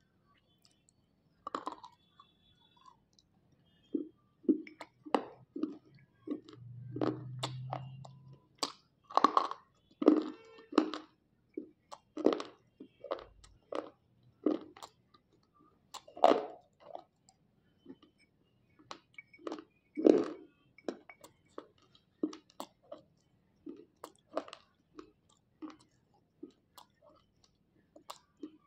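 Slate pencils coated in a wet clay paste being bitten and chewed: a run of sharp, irregular crunches, roughly one or two a second.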